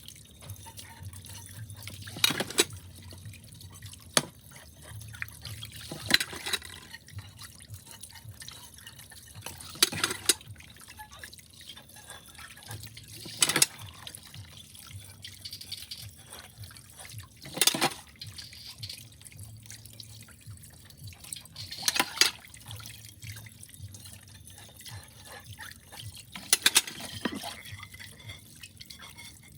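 Water running and dripping in a kitchen sink while dishes are washed by hand. Sharp, loud clicks stand out about eight times, a few seconds apart.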